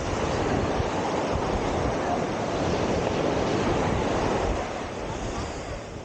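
Ocean surf washing onto a sandy beach, a steady rush of noise with wind buffeting the microphone underneath; it eases a little near the end.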